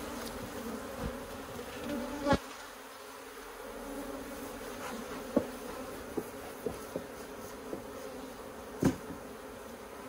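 Honeybees buzzing as they fly around a closed beehive, a steady hum. A few short sharp clicks stand out over it, the loudest about two seconds in and another near the end.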